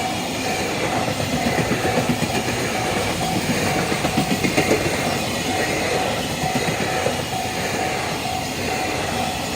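Freight train hauled by a JR Freight EF210 electric locomotive rolling past a level crossing, wheels clattering over the rail joints. The crossing's warning bell rings in a steady repeating pattern throughout.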